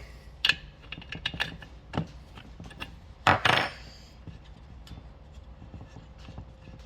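Metal tools and parts clinking and knocking against a chainsaw's engine as it is worked on by hand, with a louder short rattling clatter a little past three seconds in.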